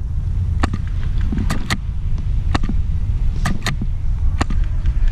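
About seven sharp snaps at irregular intervals, typical of airsoft rifles firing and BBs striking around a woodland game, over a steady low rumble on the microphone.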